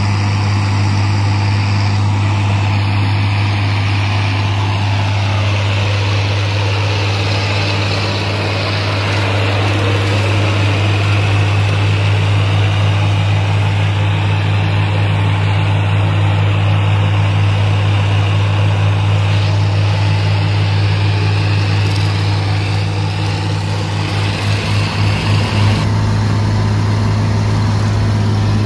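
Farm tractor's engine running steadily under load as it drives a PTO-powered Hardee rotary cutter mowing pasture grass: a constant deep drone with the cutter's hum over it, pulsing briefly near the end.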